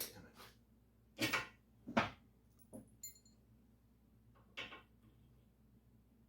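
Metal parts knocking and clinking as a washer and bolt on the motorcycle's rear shock absorber mount are repositioned by hand. There are about half a dozen short knocks, the loudest about two seconds in, and a brief metallic ring just after three seconds.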